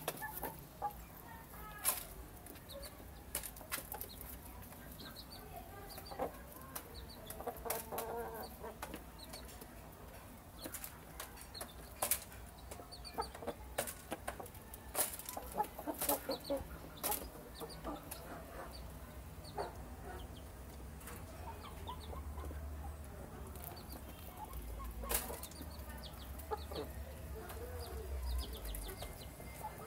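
A rooster and two hens pecking rice off a concrete floor: sharp, irregular tapping clicks of beaks, with soft low clucking between them.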